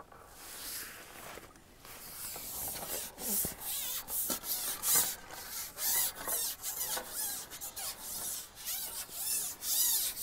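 Long carbon fishing pole being shipped back hand over hand, the sections sliding and rubbing through the hands in a series of irregular rasping strokes.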